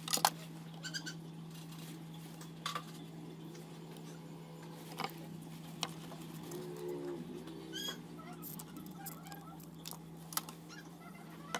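Steady low hum with scattered light clicks and taps, as meter probes are touched to pins on a speaker's circuit board while it is checked for shorts to ground.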